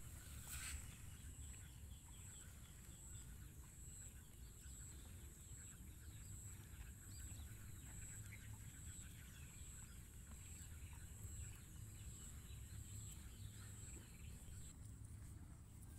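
Quiet pasture ambience: a thin, high chirp repeats steadily about one and a half times a second and stops shortly before the end, over a low rumble and faint scattered ticks.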